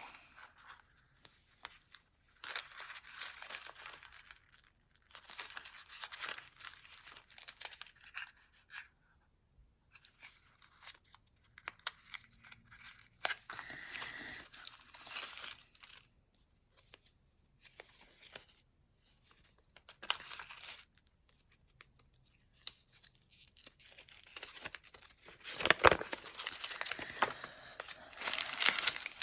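Toy kit packaging being torn open and crinkled in short, irregular bursts, with a sharp click near the end.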